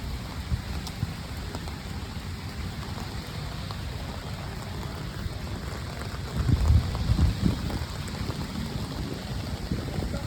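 Steady rain falling, with a low rumble underneath that swells louder for about a second roughly two-thirds of the way through.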